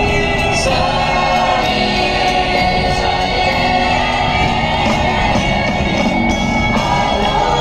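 Music with a singing voice, steady and loud throughout.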